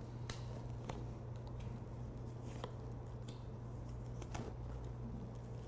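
Oracle cards being dealt one at a time onto a cloth-covered table: a few faint, short clicks as cards are drawn and laid down, over a steady low hum.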